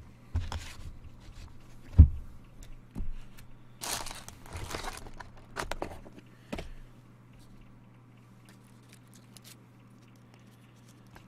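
Trading cards and their packaging being handled: rustling, scraping and crinkling, with one sharp knock about two seconds in. From about seven seconds on only a faint steady hum remains.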